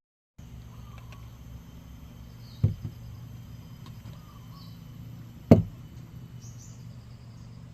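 Field ambience of faint insect drone and a few short bird chirps over a steady low background hum, broken twice by a sharp knock, the second louder, about three seconds apart.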